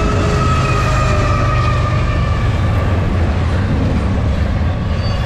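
Double-stack intermodal container freight train passing close by, a steady rumble of its wheels on the rails. Faint drawn-out high tones slowly fall in pitch through it.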